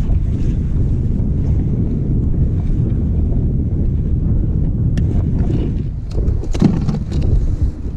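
Wind buffeting the microphone as a steady low rumble, with sharp clicks and knocks of gear being handled in the kayak's cockpit over the last few seconds.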